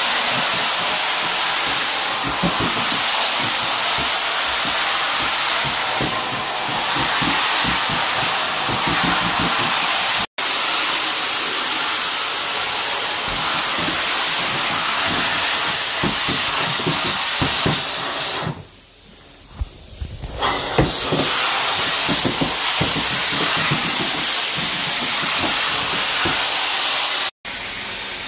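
Carpet-cleaning extraction wand with a hard-floor tile head working over a tile floor: a loud, steady rushing hiss of suction and spray. It drops away for about two seconds past the middle, and breaks off suddenly twice.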